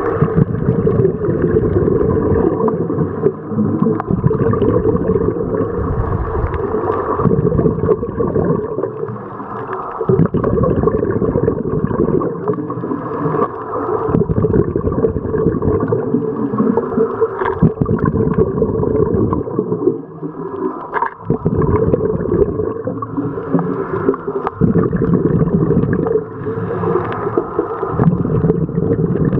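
Muffled underwater noise recorded on a camera while scuba diving: a steady dull rushing with gurgling, and a brief drop in level about two-thirds of the way through.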